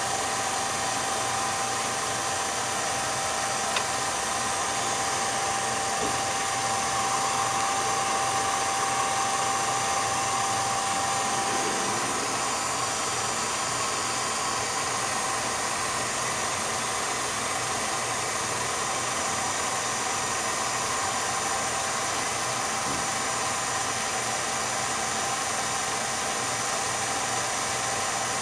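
Steady mechanical whirring hum and hiss of an 8mm film projector's motor running, with a faint high tone that stops about twelve seconds in.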